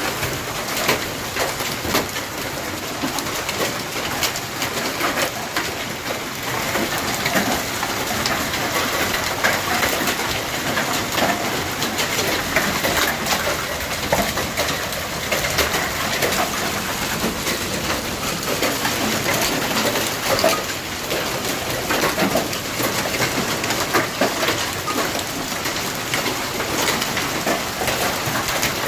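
Hailstones pelting down in a heavy storm: a dense, steady clatter of countless small impacts over a hiss of falling ice and rain.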